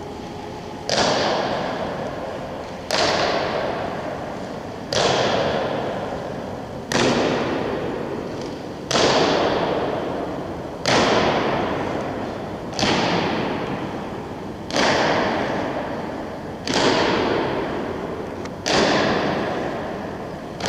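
Honor-guard soldiers marching in slow ceremonial step, their boots stamping the stone floor together about once every two seconds, ten stamps in all. Each stamp echoes and dies away slowly in a large hall.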